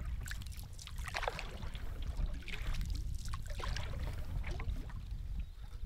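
Canoe paddling: a wooden paddle pulling through the water, with irregular splashing and dripping from the blade over a steady low rumble.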